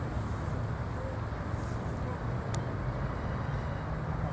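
Double-stack intermodal container cars rolling along the rails: a steady low rumble of steel wheels on track.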